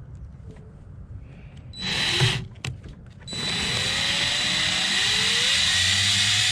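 Power drill running a screw in: a short burst about two seconds in, then a longer steady run from about three seconds in, its pitch rising slowly, fastening the new 4-inch speaker into the car door.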